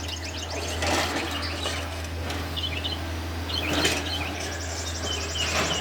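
Steady low drone of a Takeuchi TB153 compact excavator's diesel engine running at a distance, with birds chirping over it and a fast, pulsing high insect buzz in the second half.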